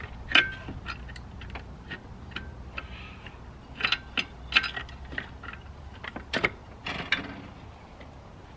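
Hand tools and metal engine parts clinking and clicking at irregular intervals during work on an ATV's stator, some knocks ringing briefly. The clinks are loudest near the start and again about six seconds in, then die away near the end.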